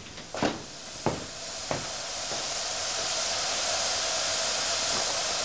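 A few short knocks, then, from about two seconds in, a steady hiss of steam blowing from the side of a 2¼-inch-to-the-foot live-steam model of a New York Central Niagara locomotive standing in steam.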